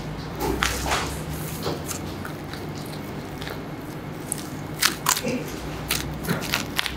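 Boning knife cutting through beef fat and connective tissue on a hanging carcass, with short crackling and tearing sounds as the meat is pulled away, coming in scattered clusters and loudest about five seconds in. A steady low hum runs underneath.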